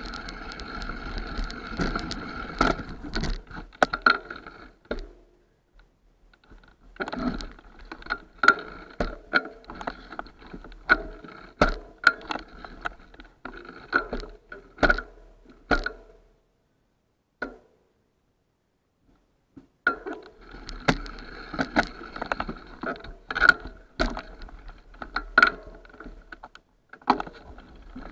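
Mountain bike riding down a rough dirt forest trail: the bike and camera mount rattle and click sharply over bumps, over a steady mechanical buzz. The sound drops away twice for a few seconds, once about five seconds in and again in the middle.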